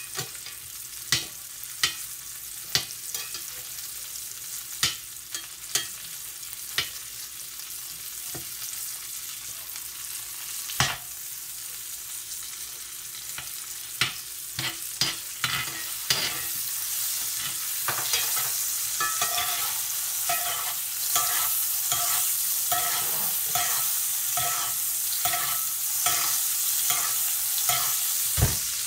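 A dry-aged ribeye sizzling in hot fat in a Lodge cast-iron skillet while a metal spoon bastes it, with sharp clicks and scrapes of the spoon against the pan. The sizzle grows louder past the middle, and the spoon strokes come faster toward the end.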